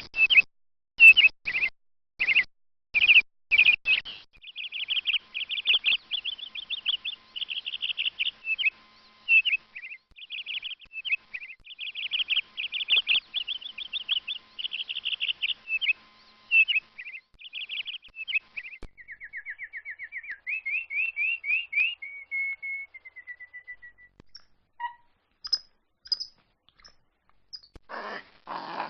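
Domestic canary singing: a few short separate chirps, then long fast trills of rapidly repeated high notes in changing phrases, a run of quick notes that dips and climbs, and a brief held whistle. Near the end a different, rougher call starts.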